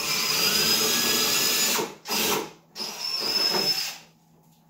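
Cordless drill spinning up to drill small starter holes in a polycarbonate RC truck body, with a steady high motor whine. It runs three times: a long run of nearly two seconds, a short burst, then about another second.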